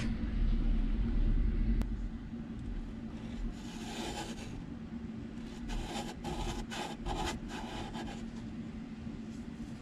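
Fingertip rubbing and scraping across a dusty plastic dashboard ledge in a Honda CRX, a run of short scrapes between about three and a half and eight seconds in. A low rumble in the first two seconds and a steady low hum sit underneath.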